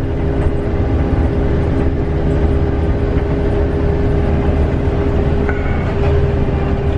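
A farm vehicle's engine running steadily while driving across a field, heard from inside the cab as an even low rumble with a steady hum.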